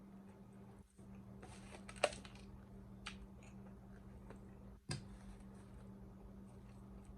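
Close-miked chewing and mouth sounds from eating a BLT sandwich, with a sharp click about two seconds in and another near five seconds, over a steady low hum.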